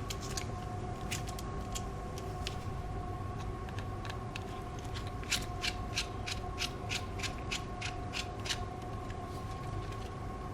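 Light clicks of small hand tools on a phone's tiny screws and parts during repair: a few scattered early, then a quick even run of about three clicks a second for roughly three seconds past the middle, over a steady faint background tone.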